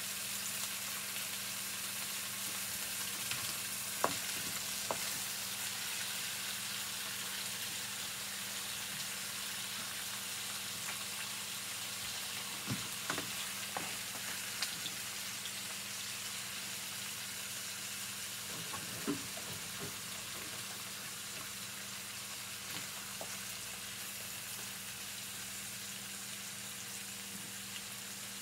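Skin-on, bone-in chicken thighs sizzling steadily in hot fat as they sear skin side down in a pan, over a low steady hum. A few light knocks come through, the clearest about four seconds in and again near the middle.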